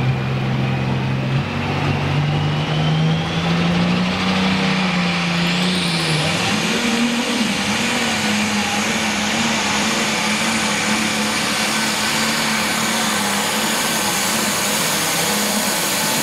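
International Harvester pulling tractor's engine at full power as it pulls down the track. The engine note climbs over the first six seconds, with a high whine rising alongside it, then holds high and steady.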